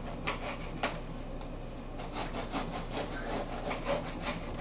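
Serrated bread knife sawing back and forth through a loaf of bread, a short rasping stroke with each pass of the blade.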